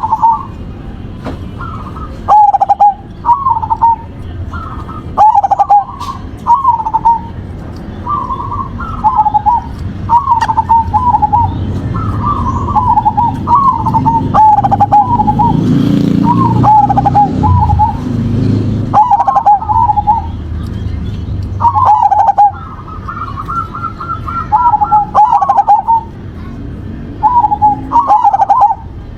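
Zebra dove (perkutut) cooing over and over in short, clear phrases, one every second or two, with a quick run of rapid notes a little after the middle.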